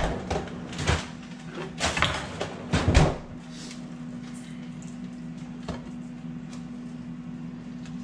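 A run of knocks and clunks from kitchen work, several in the first three seconds with the loudest about three seconds in, then only a few faint ticks. A steady low hum runs underneath.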